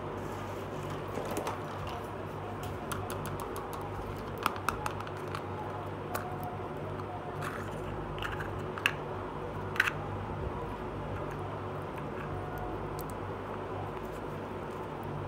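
Small plastic toy case being handled and its hinged lid opened: scattered light plastic clicks and taps, most of them between about four and ten seconds in, over a steady low hum.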